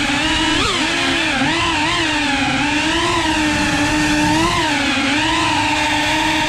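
FPV racing drone's brushless motors and propellers whining, the pitch rising and falling constantly with the throttle, with a sharp dip and recovery about half a second in.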